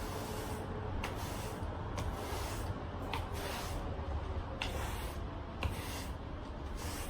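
Irregular rubbing or brushing strokes, roughly one a second, over a low steady hum.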